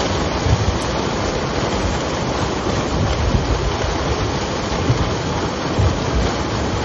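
A steady, dense splashing of a mass of fish thrashing at the surface inside a net as it is hauled in, with irregular low thumps.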